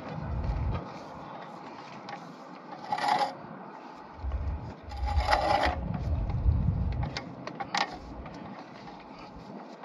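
Sewer inspection camera's push cable being slowly drawn back on its reel, with rubbing, scattered clicks and two louder rattles about three and five and a half seconds in. Bursts of low rumble come and go, the longest from about four to seven and a half seconds in.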